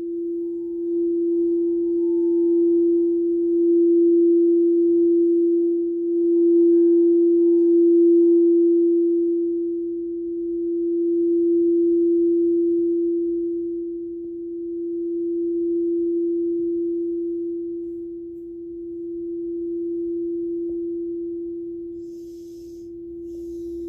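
Frosted quartz crystal singing bowl sounding one steady pure tone, its rim worked with a mallet. About halfway through the tone rings on alone, swelling and fading in slow pulses every few seconds as it gradually dies away.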